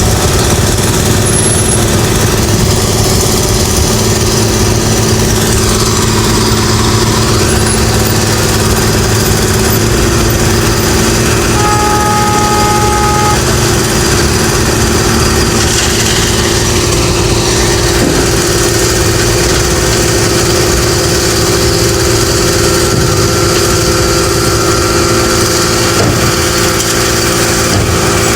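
Road construction machinery engine running steadily at a constant level, with a brief two-tone beep near the middle.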